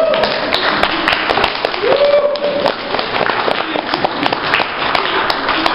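Audience applauding, with dense irregular clapping and voices mixed in, including a short held call about two seconds in.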